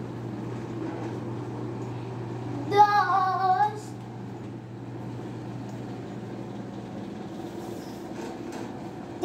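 A child's voice calling out one drawn-out, sing-song sound about three seconds in, lasting about a second, over a steady low hum.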